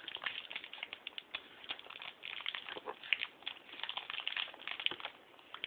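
Baby's wet mouth sounds as she gums and sucks on a chocolate bunny: irregular little smacks and clicks.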